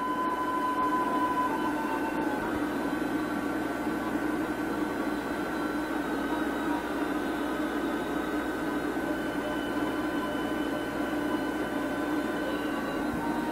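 Steady hiss with a low hum and faint steady whining tones, unchanging throughout: the background noise of an old home-video tape recording.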